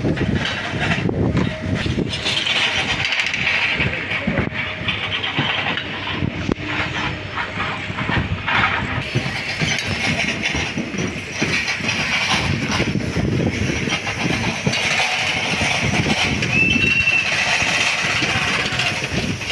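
Steady outdoor din of traffic and construction-site machinery around a railway station, with scattered knocks and one brief high-pitched tone about seventeen seconds in.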